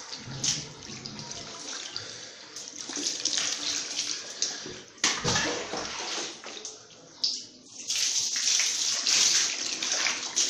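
Water splashing in a basin as a wet kitten is washed by hand, with a sharper splash or knock about five seconds in. Near the end, water pours from a cup over the kitten with a steady hiss.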